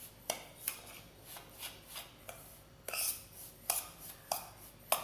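Steel spoon stirring dry fine semolina in a stainless steel bowl: short scraping strokes, about three a second, as the spoon drags through the grains against the bowl.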